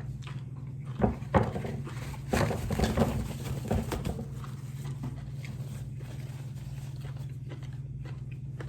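Eating sounds: chewing and mouth noises with a couple of sharp clicks about a second in and a busier stretch of short noises in the middle, over a steady low hum.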